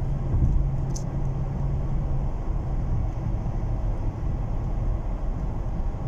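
Steady cabin noise of a 2012 Chevrolet Tahoe cruising at highway speed, engine near 2000 rpm: a low rumble of engine and road. A low steady hum over it drops away a little over two seconds in.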